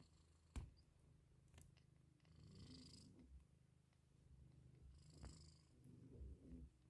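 Mother cat purring softly and steadily while her newborn kittens nurse, with a couple of faint clicks.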